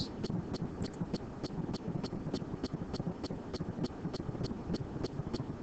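Faint, even ticking, about three light ticks a second, over low room noise and hiss.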